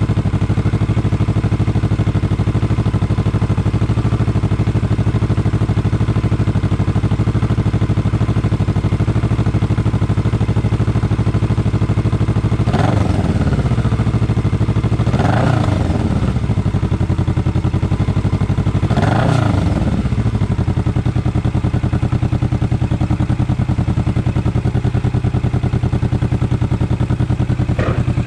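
Kawasaki Vulcan S 650's parallel-twin engine idling steadily through an Orion full-system aftermarket exhaust, revved three times in the middle, each rev rising and falling back to idle.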